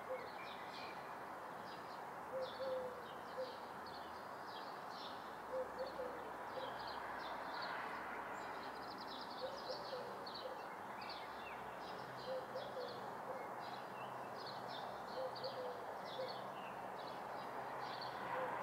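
Summer-morning ambience of birds heard from a room: many small birds chirping and twittering without pause, with a lower cooing call of two or three notes about every three seconds, over a steady hiss of background noise.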